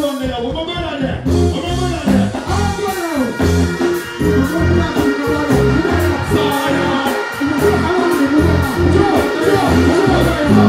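Live dancehall music through a loud outdoor PA: a heavy bass beat with a male deejay chanting over it into a microphone.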